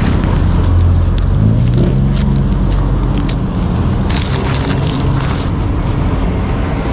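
A vehicle engine running at idle nearby, a steady low rumble. Through the middle, crunching and crackling from footsteps on gravel and the handling of a paper receipt.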